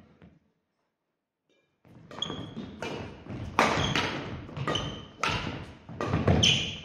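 A badminton rally on a wooden sports-hall floor: racket hits on the shuttlecock, thudding footfalls and short high shoe squeaks. It starts after about two seconds of near silence.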